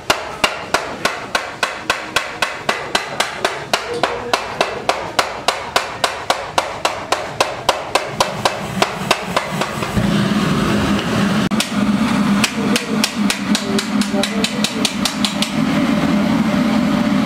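Steady, rapid hammering on metal, about three blows a second. From about ten seconds in, a loud low drone joins the hammering.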